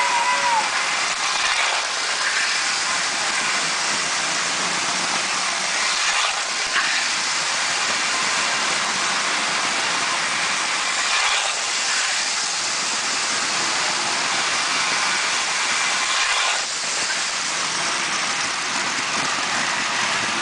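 Toy electric trains running on tinplate O gauge track, heard from the camera riding on the American Flyer locomotive: a steady rattle of its motor and wheels on the rails.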